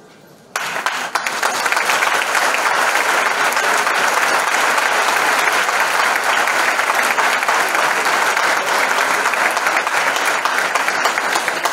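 Audience applauding, starting suddenly about half a second in and holding steady, thinning to scattered claps near the end.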